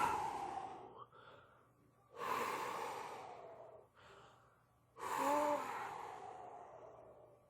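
A person out of breath from a fit of laughter, gasping: three long breathy exhales, at the start, about two seconds in and about five seconds in, each fading out over a second or more, the last with a brief squeaky voiced note.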